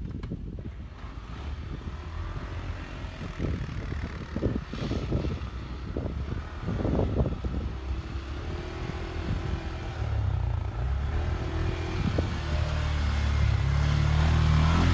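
CFMoto 550 ATV's single-cylinder engine, faint at first and surging unevenly with the throttle, then running steadily and growing louder as the quad comes closer.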